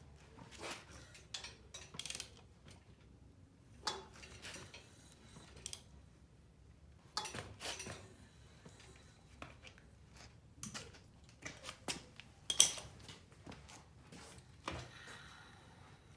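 Loose metal engine parts clinking and knocking as they are handled and set down: scattered sharp clinks, the loudest about twelve and a half seconds in.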